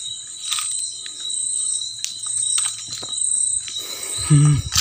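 Scattered footsteps and small clicks on a gritty, debris-strewn concrete floor, over a steady high-pitched whine.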